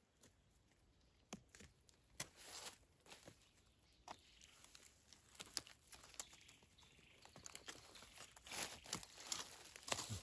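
Faint rustling and crackling with scattered sharp snaps, busier in the last few seconds: a person moving about and handling things on the forest floor while gathering mushrooms.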